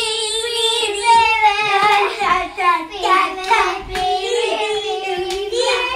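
Child singing a tune in a high voice, with long held notes that waver in pitch.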